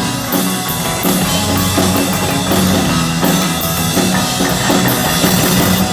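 Live rock band playing the closing instrumental bars of a song with no vocals: a drum kit with repeated cymbal crashes over two electric guitars and a bass guitar.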